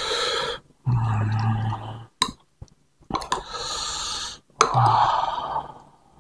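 Close-miked mouth and breath sounds of a person eating bakso noodles, in about four breathy stretches, two with a low hum, and a single clink of cutlery against the bowl about two seconds in.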